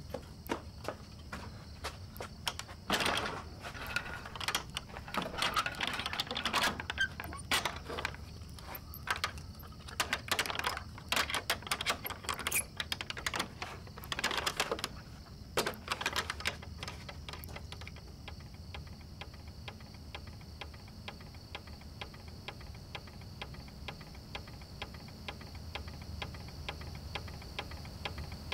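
Irregular clicks and rattles over a steady high hum. About halfway through they give way to a fast, even ticking.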